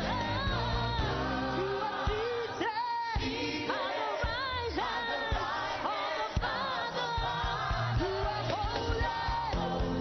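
Church worship song: singing over a band, with sustained bass and drum strokes keeping a steady beat.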